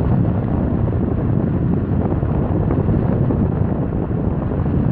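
Box fan running with its cover open: a steady, loud rush of moving air, mostly low in pitch.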